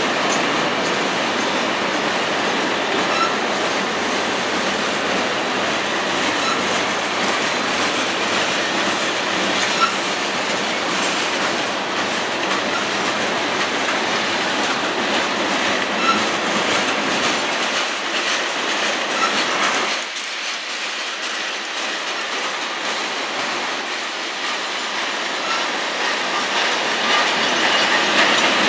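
Covered hopper cars of a CSX freight train rolling past at close range: a steady rush of steel wheels on the rails, with a few faint brief high squeaks. It eases off about two-thirds of the way through, then grows louder again near the end.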